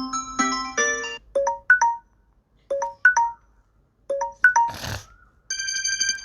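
Samsung Galaxy Note 10 built-in tones playing. A chord dies away about a second in. Then a short three-note motif of quick notes repeats three times, a brief burst of noise comes about 5 s in, and a new sustained bell-like tone starts near the end.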